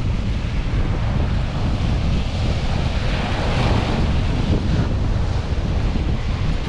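Strong wind buffeting the microphone over the steady wash of sea surf against shore rocks, with a wave surging up a little louder about halfway through.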